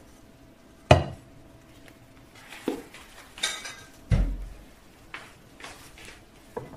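Metal cookware and utensils being handled on a stovetop: a sharp clank about a second in, then scattered knocks and clinks and a dull thump near the middle.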